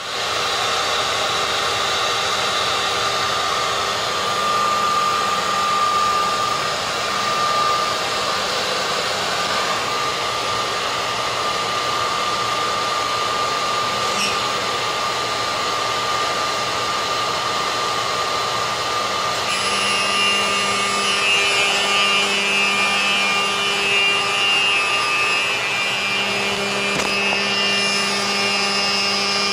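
Omni 2675 CNC router spindle running and milling aluminium alloy sheet: a steady high whine over continuous cutting noise. About two-thirds of the way in, further steady hums join in.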